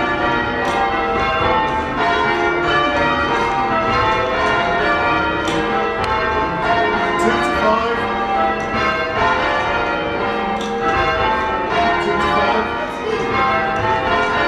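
Church tower bells rung full-circle in change ringing, heard from the ringing chamber below: a continuous run of overlapping bell strikes, one after another, each ringing on into the next.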